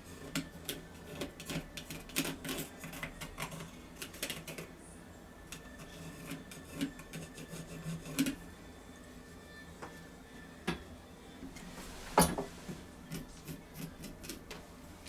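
Light, irregular clicks and taps of small parts and tools being handled on a workbench, with one louder knock about twelve seconds in.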